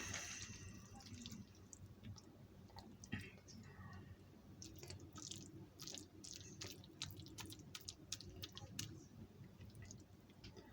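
Faint chewing: a scatter of small, soft wet clicks and smacks of a mouth eating food.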